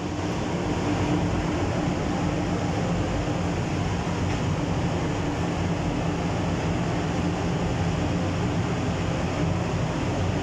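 Paint spray booth's ventilation fans running steadily: an even rushing noise with a low hum under it.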